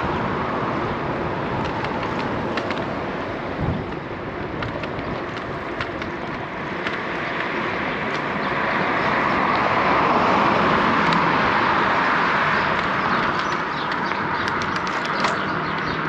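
Steady wind and road noise of a bicycle ride picked up by a GoPro action camera, swelling to its loudest about ten seconds in, with scattered light clicks and rattles.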